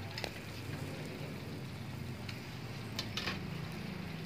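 Fish sizzling over a charcoal grill, with a few sharp crackles and pops near the start and about three seconds in, over a low steady hum.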